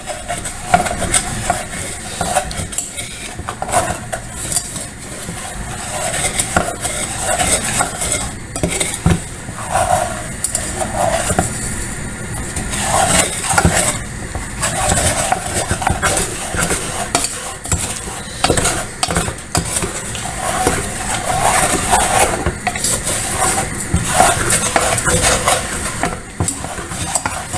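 A spoon stirring and scraping sugar in a small pot as it caramelizes over the gas, with many short clicks and knocks against the pot.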